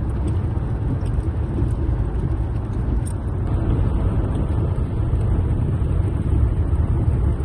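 Steady road noise inside a moving car at highway speed: a low engine and tyre rumble with a hiss above it.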